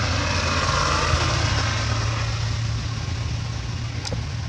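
A motor vehicle passing on the road: a rush of engine and tyre noise that swells over the first second or two and slowly fades, over a low steady rumble.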